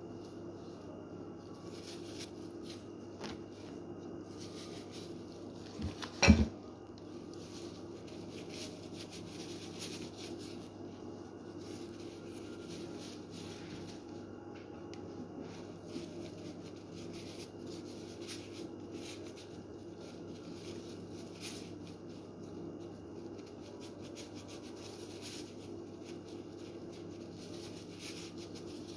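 Soft rustling and scraping of plastic-gloved hands rolling food balls in breadcrumbs, over a steady low hum. One loud knock about six seconds in.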